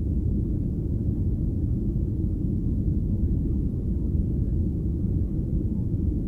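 Steady low rumble of a Boeing 737-800 in flight, its CFM56 engine and airflow noise heard from inside the passenger cabin.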